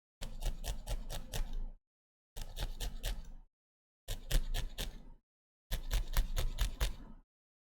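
Scissors cutting through felt in quick runs of snips, four short bursts of several rapid cuts each with dead silence between.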